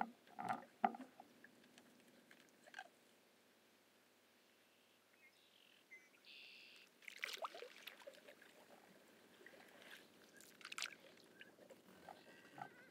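Faint, scattered water sounds of a canoe paddle: small splashes and drips with a few light clicks, strongest about half a second in and again near the end.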